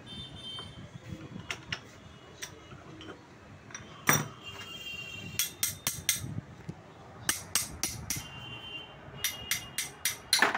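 Sharp metallic clinks and knocks from a diesel injector being taken apart at the bench, its steel parts striking tools and a steel dish. A single loud knock comes about four seconds in, then quick runs of three to five clinks.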